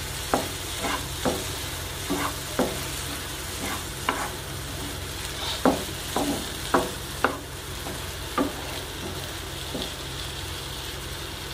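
Spatula stirring and mashing cooked elephant foot yam masiyal in a non-stick frying pan, knocking and scraping irregularly against the pan. The knocks come thick for about eight seconds, then thin out, over a steady low hum and hiss.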